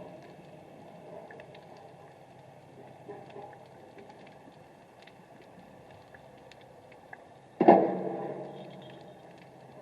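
Underwater sound: a low steady murmur of water with faint scattered clicks, broken about three-quarters of the way through by one sudden loud thump with a rush that fades over a second or so.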